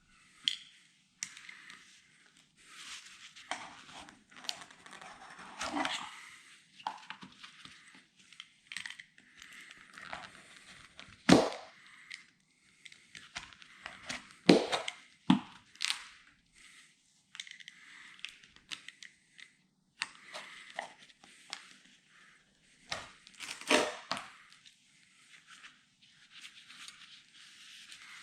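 Hands and a tool working at a windscreen's rubber seal, making irregular scraping, rubbing and crinkling with a few sharp knocks, the loudest about a third of the way in.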